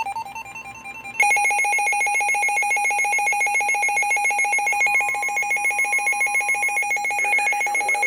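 Emergency alert attention tone: a loud, rapidly pulsing electronic tone with a low and a high pitch sounding together. It starts abruptly about a second in and continues without a break. It signals an incoming weather warning.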